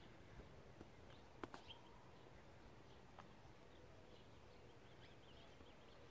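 Near silence: faint outdoor ambience with a few faint bird chirps and one sharp tap about a second and a half in.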